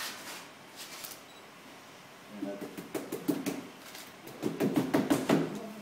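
Wet slaps and taps as water is put onto clay in a hand tile mould and worked over its surface. A few taps come early on; from about two and a half seconds in, a quick irregular run of slaps builds to its loudest near the end.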